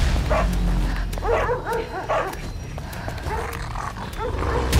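A dog barking repeatedly, a string of short barks that rise and fall in pitch, over a steady low hum.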